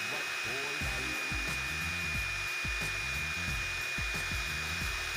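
Electric drill boring a hole into a concrete wall, its motor giving a steady high-pitched whine under load.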